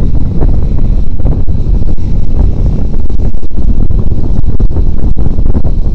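Loud wind buffeting on a motorcycle rider's camera microphone while riding at road speed, a dense low rumble with brief dropouts.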